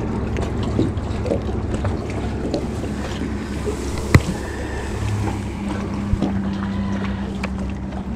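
Steady low hum of a fishing boat with wind on the microphone, and a single sharp knock about four seconds in as the front deck hatch lid is handled.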